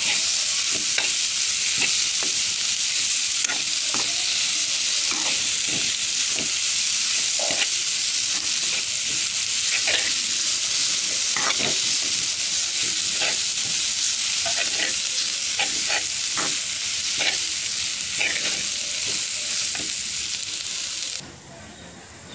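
Green-chilli and onion paste sizzling and roasting in ghee in a frying pan, stirred with a metal spatula that scrapes and taps the pan at irregular moments. The sizzle drops away suddenly near the end.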